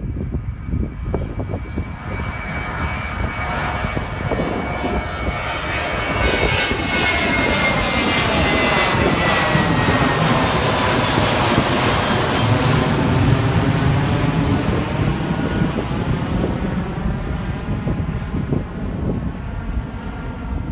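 Airplane flying past: the engine noise swells to a peak about halfway through and then fades, and its whine falls in pitch as it goes by.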